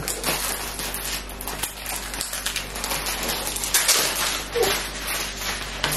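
Hands rustling and crinkling plastic and paper packaging while unwrapping a small item, with irregular small crackles and taps throughout.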